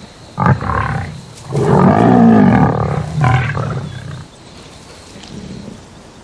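Lions growling: a short growl about half a second in, then a longer, louder growl from about one and a half to four seconds in, fading to quiet after.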